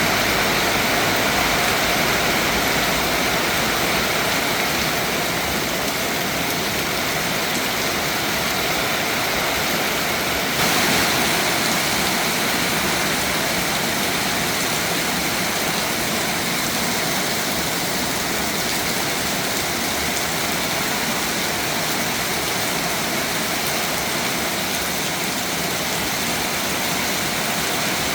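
Steady heavy rainfall, an even hiss of falling rain with no pauses. The balance of the sound shifts slightly about ten seconds in.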